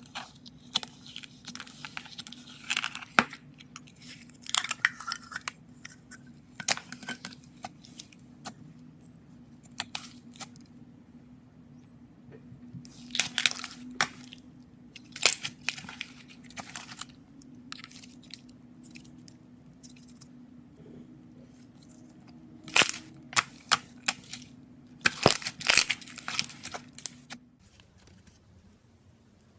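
Glitter slime being squeezed and stretched by hand, giving irregular bursts of crackling and sharp pops, loudest in clusters toward the middle and near the end. A faint steady low hum underneath stops shortly before the end.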